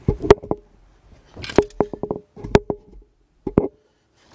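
Metal tools and parts clinking and knocking together in a few quick clusters of sharp strikes, several with a short metallic ring.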